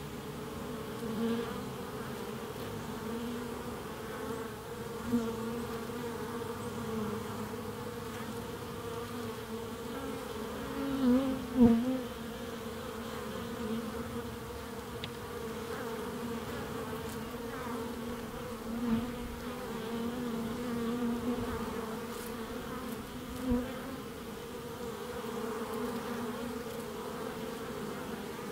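Honey bees buzzing at the entrance of their hive: a steady hum of many wings, swelling now and then as single bees fly close past, loudest about twelve seconds in.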